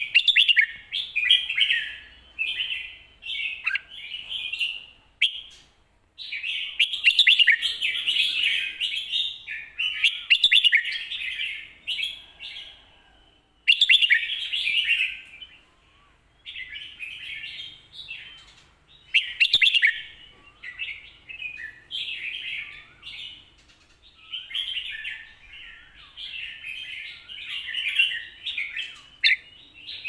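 Red-whiskered bulbul singing: a run of rich, warbling phrases, each one to two seconds long, with short pauses between them. A single sharp click sounds about two-thirds of the way through.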